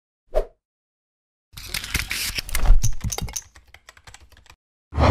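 Sound effects for an animated logo outro: a short hit, then a rapid flurry of clicks like typing that thins out into scattered clicks, and another burst near the end.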